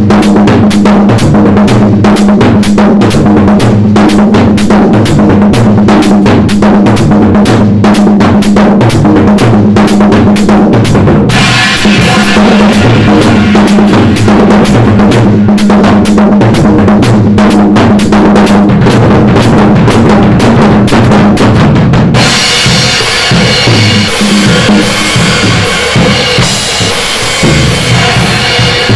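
Drum kit played in a fast, steady groove of bass drum and snare over a constant low drum ring. About 11 seconds in, more cymbal is added, and about 22 seconds in the pattern changes to a busier cymbal-heavy part.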